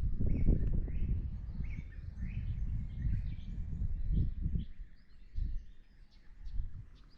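Small birds chirping in short, repeated calls over a low rumbling noise that is strongest in the first few seconds and fades after about five seconds.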